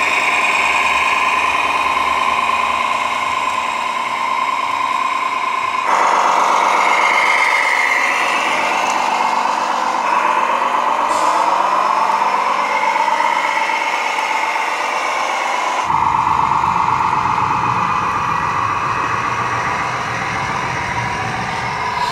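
Radio-controlled scale heavy-haulage truck driving, with a steady motor and engine-like running sound and a wavering whine. The sound changes abruptly twice, about 6 and 16 seconds in.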